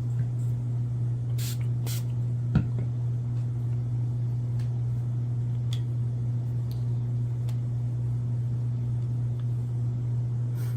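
Two short hissing pumps of a pump-spray bottle of eyeglass lens cleaner, about a second and a half and two seconds in, followed by a single click, over a steady low hum.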